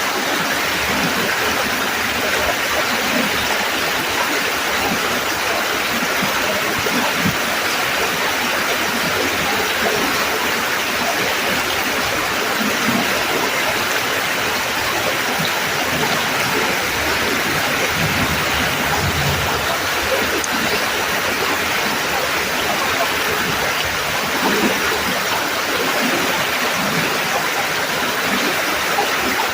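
Rushing creek water flowing steadily, a constant even rush without breaks.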